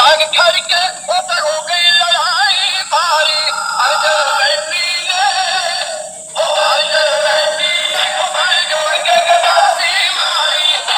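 Background music: a song with a wavering sung vocal line, thin-sounding with no bass, that breaks off briefly about six seconds in.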